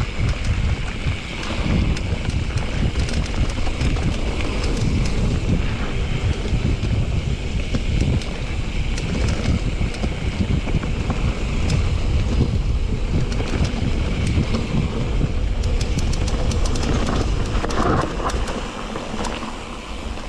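Wind buffeting the microphone of a chest-mounted action camera while riding a mountain bike on a trail, a steady loud rush and rumble. In the last few seconds there is a run of sharp clicks and rattles from the bike.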